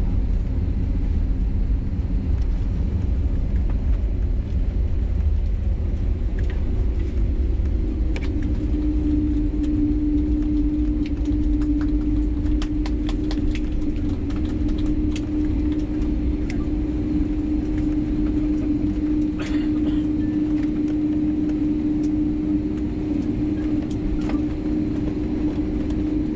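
Airliner cabin noise inside an Airbus A320neo: a steady low rumble, with a steady hum setting in about a third of the way through and scattered light clicks and rattles.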